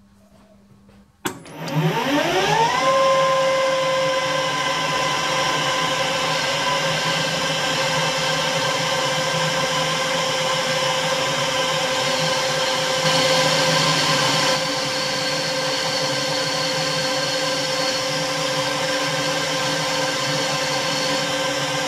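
Metal lathe starting up: its motor and spindle whine rising in pitch as they spin up about a second in, then running steadily at speed, with a brief louder stretch about two-thirds through.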